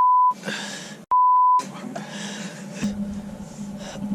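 Two censor bleeps: a pure steady 1 kHz beep dubbed over the soundtrack, muting everything else while it plays. The first is already sounding and stops shortly after the start, and the second follows about a second in and lasts about half a second.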